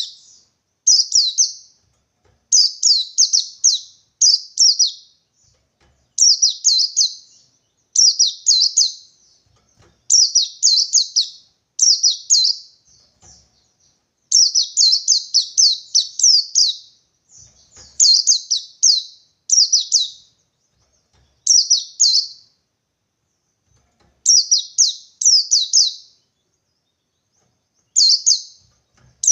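White-eye (pleci) singing the 'ngalas 123' call that a bird gives when seeking a rival: short bursts of two to four fast, high chirped notes, repeated every second or two with brief pauses.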